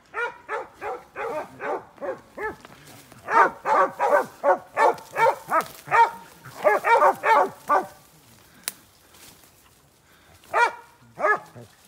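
Hog dogs baying a cornered wild hog: a fast run of barks, about three a second, loudest in the middle, then a lull with one sharp snap and two last barks near the end.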